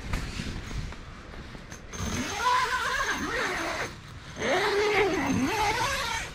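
Zipper on a rooftop tent's mesh panel being pulled in two long strokes, each a rasp that rises and then falls in pitch.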